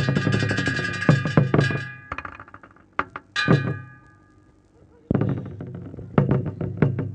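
A lakhon basak theatre percussion ensemble playing a fast, dense run of drum and percussion strokes over a steady ringing tone. It breaks off about two seconds in, with a few scattered strokes and a short lull, and the fast playing starts again about five seconds in.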